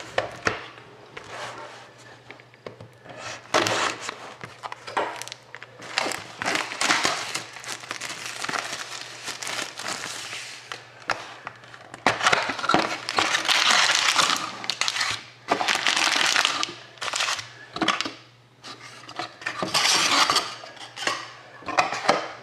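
Plastic shrink wrap crinkling and crumpling as it is stripped off a trading card box. The cardboard box is then opened and the card packs handled, in irregular rustling bursts that are busiest about halfway through.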